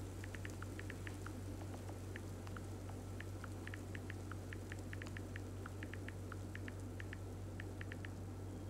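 Smartphone on-screen keyboard clicking as a message is typed: short, quick ticks at an uneven pace, several a second, over a steady low hum.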